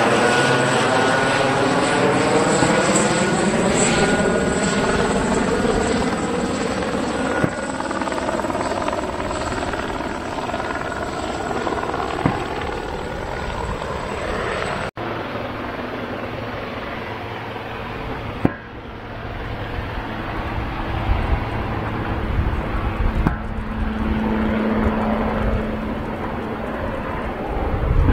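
A jet airliner passes close, its turbofan engines making a loud whoosh with a high whine and a phasing sweep in pitch as it goes by. About halfway through the sound cuts abruptly to a quieter, steadier engine rumble.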